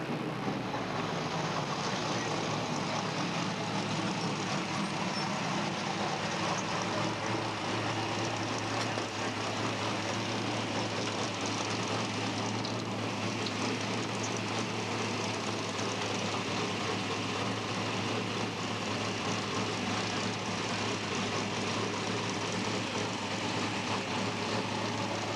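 NASCAR race truck's V8 engine idling steadily, a constant low hum under loud engine noise.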